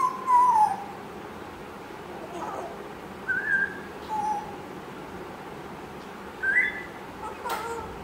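African grey parrot giving a string of short whistles and squeaky calls. The first and loudest slides down in pitch; the later ones are brief, higher chirps, some rising.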